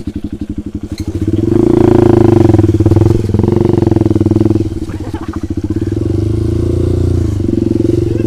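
Dirt bike engine under way on a rough trail: it chugs at low revs for about a second, then the throttle opens and it runs louder, easing off briefly around five seconds and dipping and rising again near the end as the rider works the throttle.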